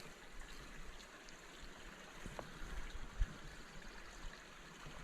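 Small creek flowing, a faint steady trickle of water, with a small knock just after three seconds in.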